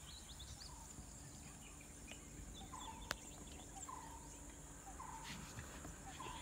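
Wild birds calling, one short call repeating about once a second among scattered higher chirps, over a steady high-pitched insect buzz. There is a single sharp click about three seconds in.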